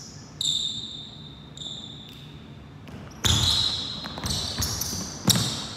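A basketball bouncing and thudding on a hardwood gym floor during one-on-one play: sharp thuds about half a second in, near two seconds, a little after three seconds and near the end. High-pitched tones ring on for a second or so after some of the hits.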